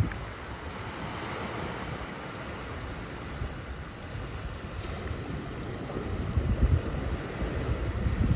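Steady wash of ocean surf with wind gusting on the microphone, the gusts strongest in the second half.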